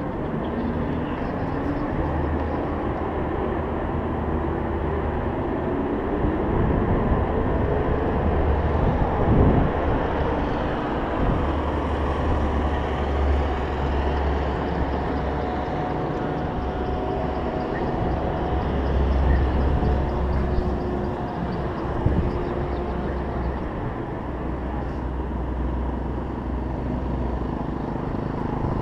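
NASCAR stock car V8 engines running around the circuit. One rises steadily in pitch over the first nine seconds or so as it accelerates and is loudest about nine and a half seconds in.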